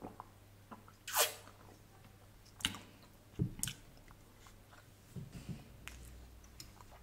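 Close-miked drinking from a glass: a swallow and a short, loud breathy sound about a second in, then the glass set down on a wooden table with a few soft knocks around three seconds in, and small taps and clicks of hands and cutlery near the end.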